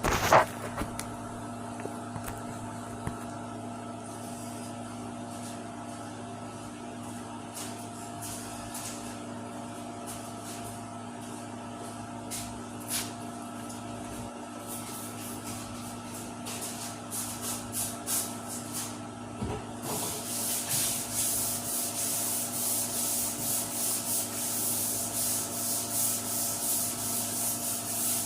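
Sandpaper rubbed by hand back and forth over a car trunk lid in the final sanding before the silver base coat. First come scattered strokes, then from about two-thirds of the way in steady rhythmic strokes about two a second, over a steady hum.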